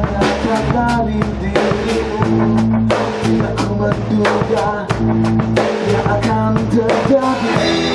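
Live rock band playing with a steady beat: a drum kit, electric bass and electric guitars.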